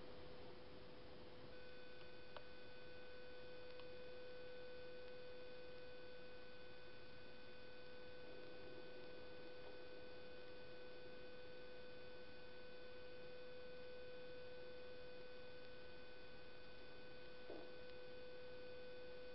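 Faint steady electronic whine: one constant tone over background hiss, with a few higher tones joining about two seconds in, and a single faint click shortly after.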